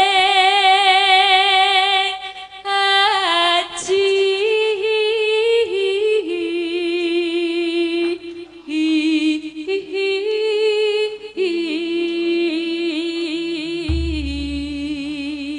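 A Javanese sindhen (female gamelan singer) singing solo through a microphone, holding long notes with a wide vibrato and sliding between pitches. A deep low sound comes in under the voice near the end.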